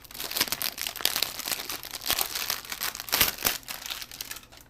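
Shoe packaging crinkling and rustling as the sneakers are unwrapped by hand: an irregular run of crackles, with louder ones about a second in and around three seconds in.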